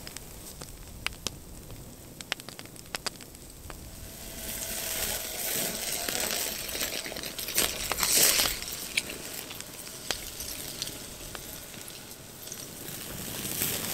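Wood fire crackling under a wire grill with beef burger patties sizzling on it. Sharp pops come in the first few seconds, then a hissing crackle swells, loudest about halfway through, and eases off near the end.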